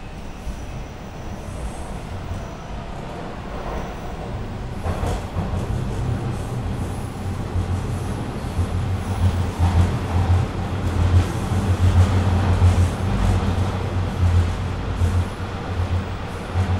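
Toronto subway T-1 train with VVVF inverter drive running, heard from inside the car: wheels rolling on the rails with motor noise and a deep hum, growing louder over the first half.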